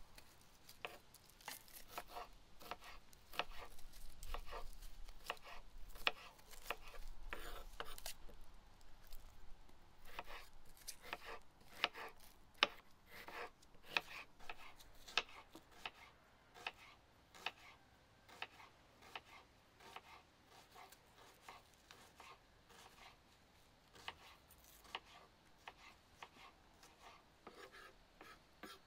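Kitchen knife slicing a red onion on a wooden cutting board: a run of irregular sharp taps as the blade strikes the board, quickest in the middle and thinning out near the end.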